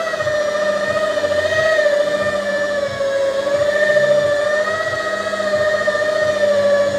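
Rotary car polisher with a foam pad running on a painted car bonnet: a steady motor whine that wavers slightly in pitch as the pad is pressed and moved over the paint.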